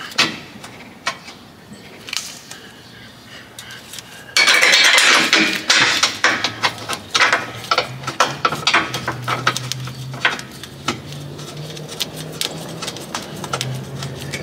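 Metal clinks and knocks as a suspension bolt is lined up and worked by hand into the lower control arm mounting. A louder burst of metallic rattling comes about four seconds in and lasts over a second.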